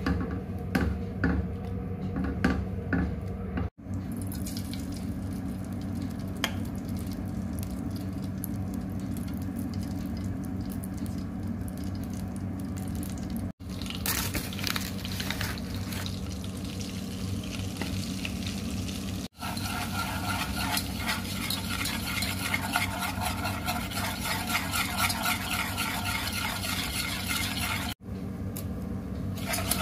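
Food sizzling in a pan while being stirred with a spoon. It is broken by four brief sudden gaps where clips are cut together, and the sizzling and scraping are busier in the last third.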